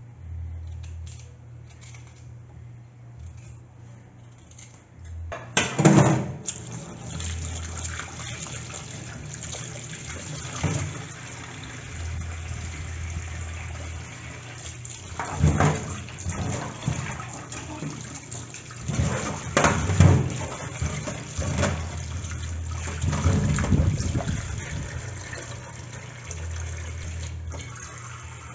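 Tap water running into a stainless steel sink as peeled potatoes are rinsed under it, with several knocks from potatoes and a saucepan handled in the sink; the water starts about five seconds in. Before that, a knife scrapes faintly at a sweet potato being peeled.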